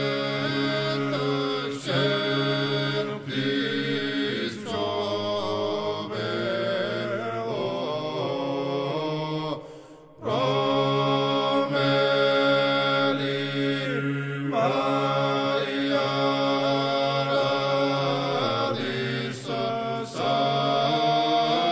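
Georgian church chant: three-part a cappella polyphony with long held chords over a low sustained voice. The singing breaks off briefly about halfway through, then resumes.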